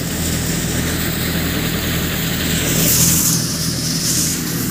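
John Deere tractor's diesel engine running steadily while driving a multicrop thresher, the thresher's noisy hiss over the engine's hum. A louder high hiss comes in about three seconds in and fades near the end.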